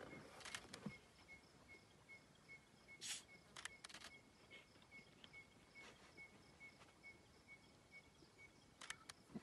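Near-silent bush ambience: a faint high pip repeats about three times a second, with a few short clicks and knocks scattered through it.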